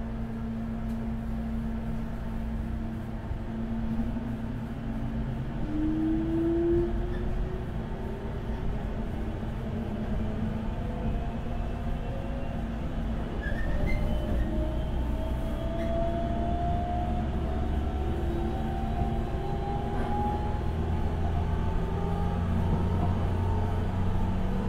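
Running sound of a JNR 475-series express-type EMU, heard from the vestibule of the motor car: MT54 DC traction motors and 19:80 gears whine over the rumble of wheels on rail. The whine climbs steadily in pitch from a few seconds in as the train gathers speed.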